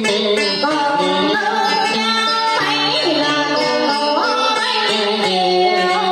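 A woman singing into a microphone over amplified instrumental backing music, her held notes wavering and gliding in pitch, with a dip and rise about halfway through.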